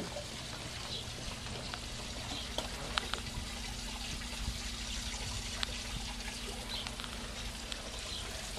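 Steady pouring and trickling of water, typical of a moored cruiser's air-conditioning cooling-water discharge running overboard from the hull, over a low steady hum.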